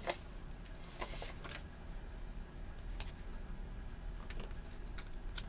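Handling of sticker sheets and planner paper: a few scattered light clicks and taps with faint paper rustle.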